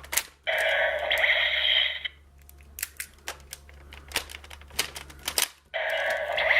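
Electronic sound effects from a DX Gaburevolver toy gun's small speaker, a burst about half a second in and another near the end, with separate plastic clicks of the toy's mechanism in between.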